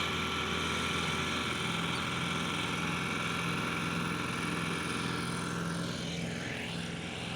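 Harvesting machine's engine running steadily as it moves past, easing off slightly near the end.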